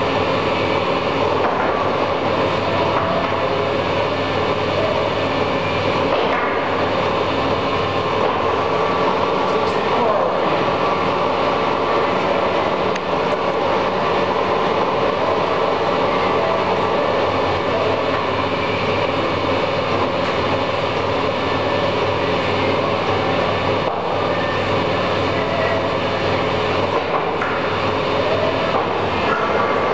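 Monarch 36NN heavy-duty engine lathe running under power: the headstock drive and gearing give a steady mechanical hum with several steady tones as the 32-inch four-jaw chuck turns. The sound shifts slightly a few times.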